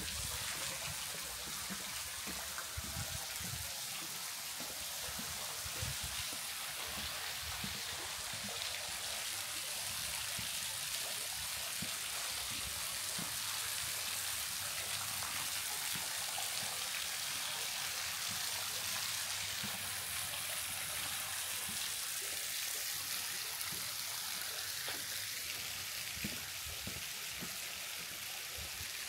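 Steady hiss of running water, with irregular low thuds underneath.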